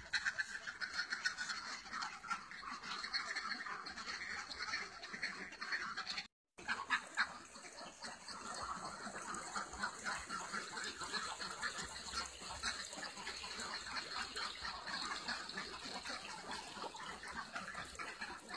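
A large flock of domestic ducks quacking continuously, many overlapping calls at once. The sound cuts out briefly about six seconds in.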